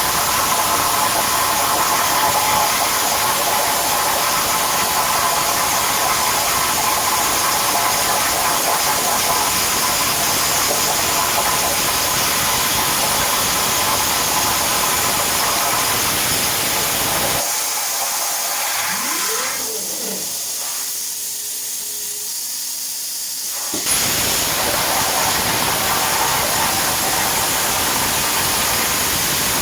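CNC plasma torch cutting 10 mm S255 steel plate with a loud, steady hiss. Partway through, the cutting noise drops away to a fainter hiss for about six seconds, with a short rising tone. It then returns suddenly with a sharp crack as the arc fires again.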